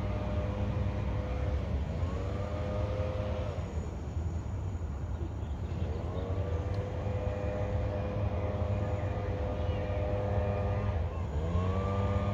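Train air horn sounding a series of blasts, each a held multi-note chord that slides up to pitch at its start: a short one, then a long one of about five seconds, then another near the end, over a steady low rumble.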